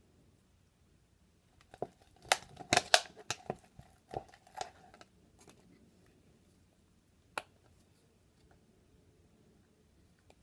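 A plastic stirrer knocking and scraping against the sides of a plastic cup while stirring sticky slime: a cluster of clicks and knocks a couple of seconds in, then a single sharp click a few seconds later.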